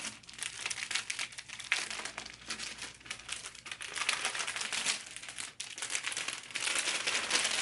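Packing material crinkling and rustling as hands rummage through a shipping box to pull out its contents, a little louder near the end.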